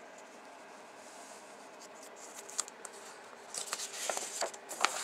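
Paper pages of a model kit's instruction booklet being handled and turned: quiet at first, then a click and a quick run of paper rustles and flaps over the last second and a half.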